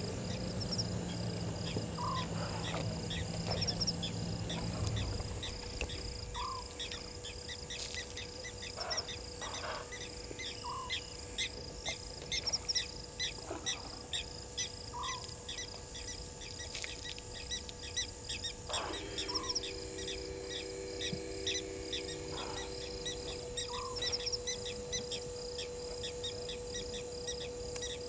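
A night bush chorus of insects chirping and trilling steadily, with a short call repeating about every four seconds. A low motor hum, the remote camera panning, runs for the first five seconds and a fainter one returns briefly past the middle.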